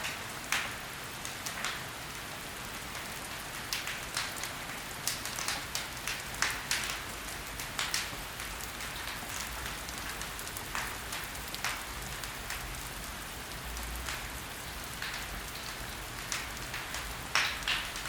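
Wood fire burning in a fireplace: logs crackling with irregular sharp pops over a steady soft hiss, a few louder pops now and then.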